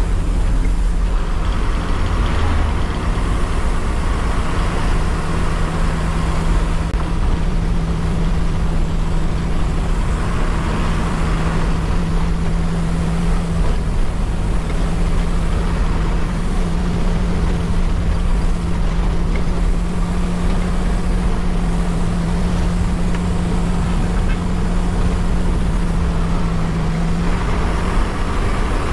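Bus engine running steadily under way, with tyre and road noise, heard from the driver's cab as an unbroken low drone with a steady hum.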